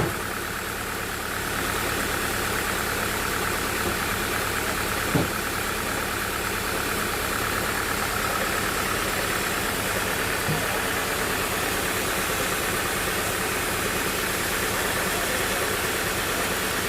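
Sawmill machinery running steadily with an even engine drone. Two short knocks come through, about five seconds in and again about ten seconds in.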